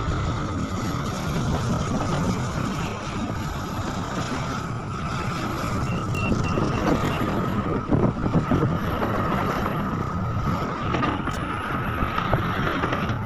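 Heavy diesel earthmoving machinery, excavator and dump trucks, running under load: a loud low rumble with a steady whine above it. A few short beeps sound about six seconds in, and a cluster of knocks follows around eight seconds.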